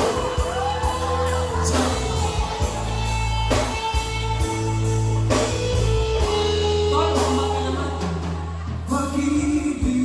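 Music with a singing voice over heavy bass and a regular beat, accented about every two seconds.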